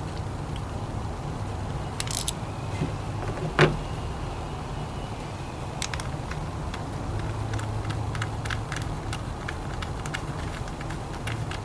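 Scion tC's 2AZ-FE four-cylinder engine running at idle, a steady low hum, with scattered light clicks and one sharp knock about three and a half seconds in.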